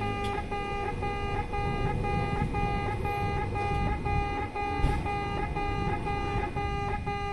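Electronic railway level-crossing alarm of the old 'pe-pe' type, ringing: a buzzy electronic beep repeated about twice a second.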